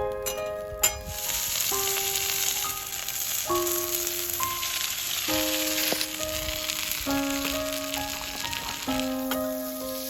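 Food frying on a hot iron griddle, a steady sizzle, under slow piano music whose held notes change every second or two. A sharp click comes just under a second in.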